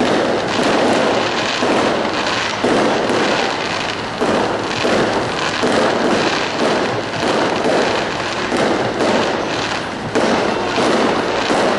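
Aerial fireworks going off in a continuous barrage: repeated loud bangs every second or two over constant crackling.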